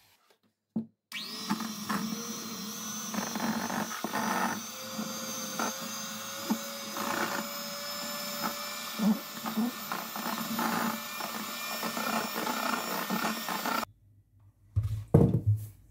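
Electric hand mixer switched on about a second in, its motor whining up to speed and then running steadily as the beaters whip chilled coconut whipping cream in a stainless steel bowl, with occasional knocks of the beaters against the bowl. The motor cuts off suddenly near the end, followed by a few loud knocks.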